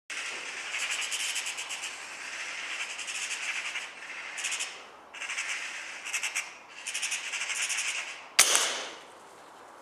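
Eurasian magpie chattering: a rapid rattling call in several bursts, then a single sharp gunshot about eight and a half seconds in, the loudest sound, dying away within a second.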